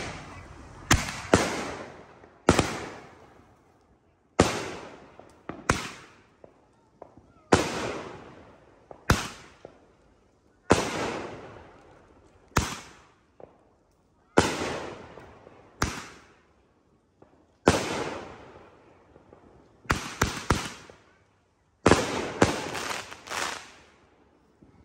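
Backyard aerial fireworks going off: a string of sharp bangs about every one and a half to two seconds, each fading out over a second or so. Bursts come in quick clusters of two or three near the end.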